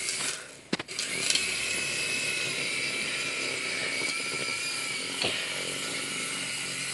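Mini RC toy helicopter's small electric motor spinning up about a second in, just after a click, then running with a steady high whine and buzz of the rotors.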